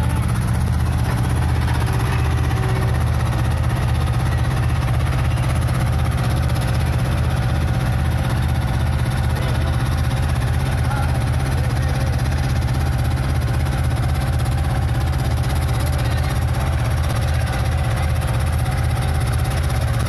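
Small tandem road roller's engine running steadily with a low, rapid throb.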